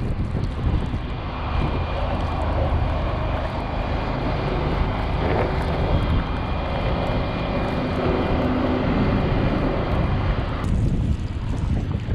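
Heavy vehicle engine running steadily under a dense rush of noise. The sound changes abruptly near the end, becoming thinner and more like wind.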